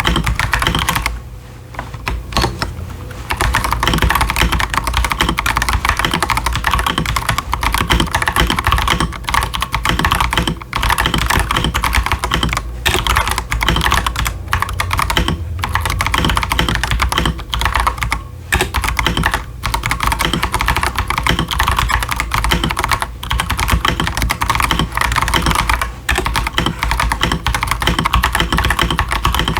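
Fast continuous typing on an Akko 5075s mechanical keyboard with Akko Jelly Purple tactile switches and ASA-profile doubleshot PBT keycaps, a dense stream of key clacks with a few brief pauses, the longest about a second in.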